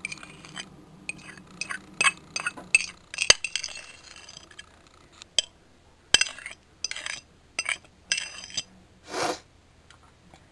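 A metal spoon clinking and scraping against a dish while soupy meat-substitute mixture is scooped and spread onto a tortilla: a run of short, irregular clinks and scrapes, with a longer scrape near the end.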